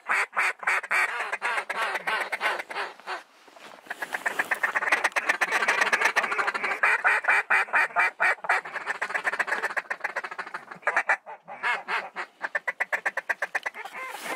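Mallard quacking in fast runs of quacks and chuckles, with a short break about three seconds in and another near eleven seconds.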